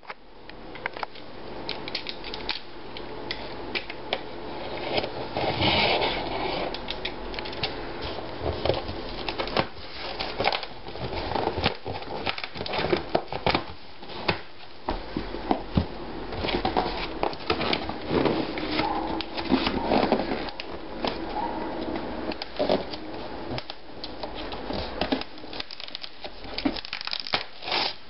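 Hands working at a cardboard monitor box: an irregular run of crackles, scrapes and taps as the packing tape is picked at and pulled and the box flaps are opened.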